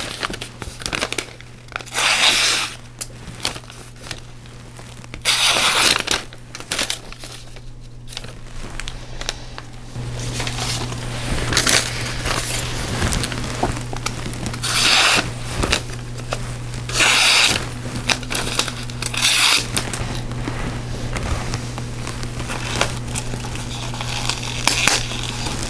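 Paper-like crinkling and tearing in repeated short bursts, over a steady low hum that grows louder about ten seconds in.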